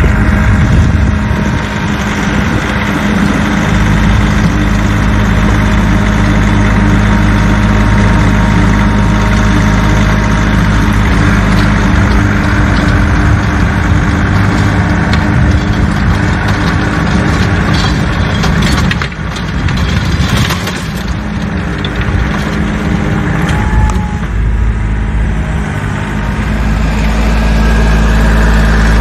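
Kioti CK3510 SE compact tractor's diesel engine running steadily under load while its PTO-driven Bush Hog rotary tiller churns the soil. It grows louder near the end as the tractor comes up close.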